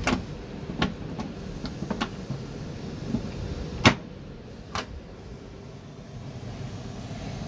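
Metal latch handles on Boeing 737 galley compartment doors being pulled and rattled: a series of sharp clicks and knocks, the loudest about four seconds in, as a latch that will not open is tugged.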